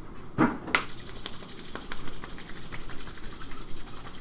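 A click, then a steady high hiss with a fine, even flutter that carries on to the end.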